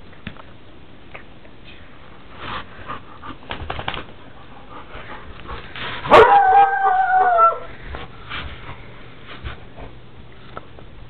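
A dog lets out one long, drawn-out cry about six seconds in, held for about a second and a half and dropping slightly in pitch at the end. Scattered short rustles and knocks come before it.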